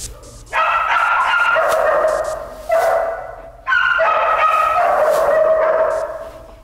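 German Shepherd whining with a bite toy held in its mouth: three long drawn-out whines, the last the longest, each held at a fairly steady high pitch.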